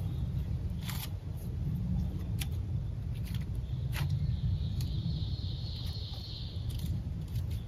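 Steady low rumble of wind on the microphone, with a handful of scattered sharp clicks and snaps from tinder and small sticks being handled in a fire lay, and a faint high-pitched hiss for about three seconds past the middle.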